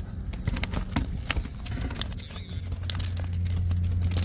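Scattered small clicks and crackles of gravel and handling. About halfway through, a steady low hum builds: a motor vehicle crossing the bridge overhead.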